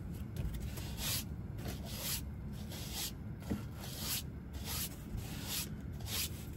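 Broom sweeping sand, in short brisk strokes about twice a second.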